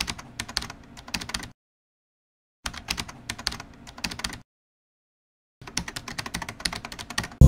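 Keyboard typing sound effect: three bursts of rapid key clicks, each about a second and a half long, with completely silent gaps of about a second between them.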